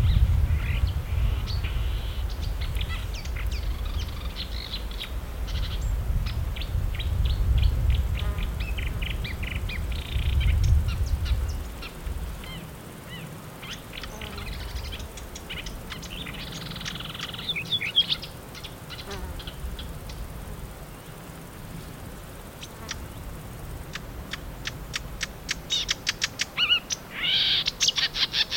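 Marsh warbler singing its fast, chattering song, varied phrases between short pauses, rising to a loud run of rapid repeated notes near the end. A low rumble underlies the first twelve seconds or so, then stops.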